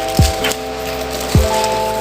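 Background electronic music: held chords over a deep kick drum that hits twice.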